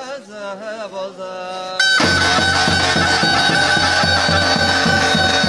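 Davul and zurna playing halay dance music. A quieter wavering melody comes first; about two seconds in, the band comes in suddenly much louder, the zurna holding one long shrill note over steady davul beats.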